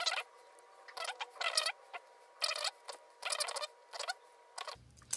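Small hand tools, a screwdriver and a pocket-knife blade, scraping and squeaking against a brass screw terminal and copper wire as it is fastened. The sound comes in a series of short, irregular strokes.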